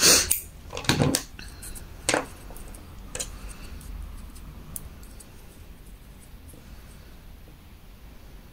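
Scissors snipping crochet yarn to fasten off: a few short sharp snips in the first three seconds or so, the first the loudest, then faint handling clicks.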